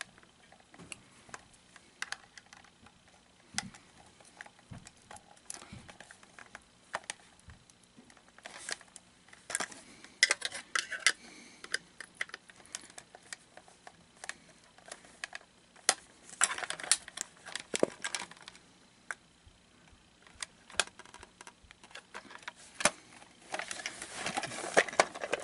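Plastic shell of a Gemmy Johnny the Talking Toilet toy being pried apart by hand: scattered clicks and creaks, with bursts of cracking and scraping about ten seconds in, again around sixteen to eighteen seconds, and near the end, as the glued seams give.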